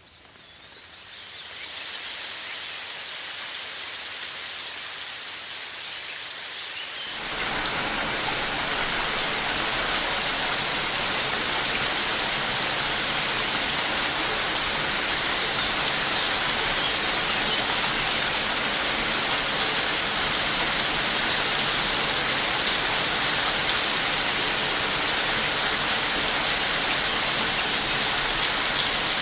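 Rain falling steadily as an even hiss. It fades up over the first couple of seconds and then becomes suddenly heavier and louder about seven seconds in.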